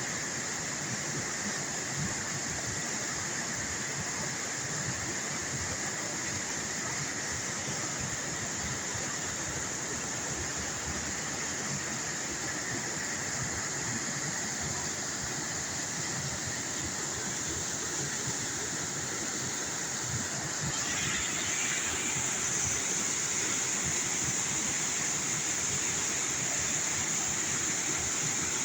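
Waterfall rushing steadily, a continuous roar of falling water that grows a little louder and brighter about two-thirds of the way through.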